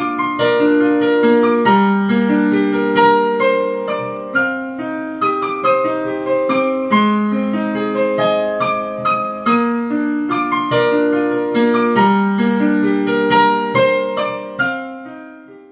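Background piano music: a steady run of struck notes over chords, fading out near the end.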